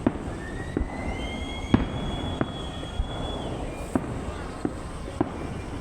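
Fireworks going off: a string of sharp bangs from bursting shells, about one every half second to second, the loudest a little under two seconds in. Over the first half a whistle rises in pitch, then holds high and steady.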